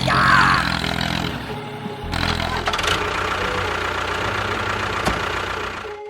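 A small motor running steadily, engine-like, from a homemade miniature tractor or bulldozer, with a short warbling sound at the start and a single sharp click about five seconds in.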